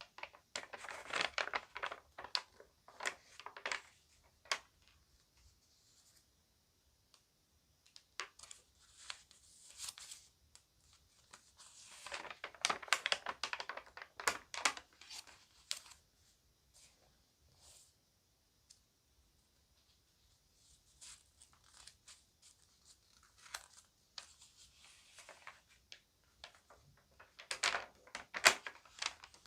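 Magazine pages being handled and turned, crinkling and crackling in bursts of a few seconds with short quiet gaps between them; the loudest bursts come near the start, in the middle and near the end.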